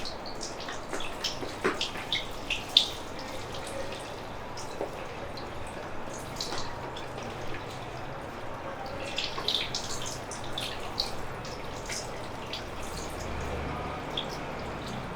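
Water running steadily, with many small wet clicks and drips scattered through it.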